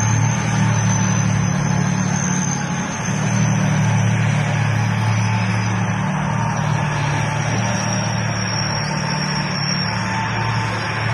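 A heavy vehicle engine running steadily at idle, a deep low drone with a thin high whine over it.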